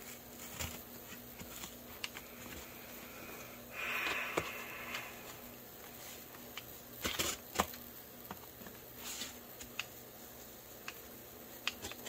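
Cardboard and a paper mailer rustling and scraping as a Griv-Ex plastic Cold Steel FGX trainer balisong is pushed through, puncturing and tearing the cardboard rather than cutting it. There is a short scratchy scrape about four seconds in and a few light clicks.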